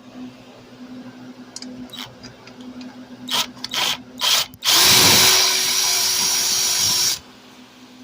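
Power drill driving a screw: a few short trigger blips, then running steadily for about two and a half seconds before stopping abruptly.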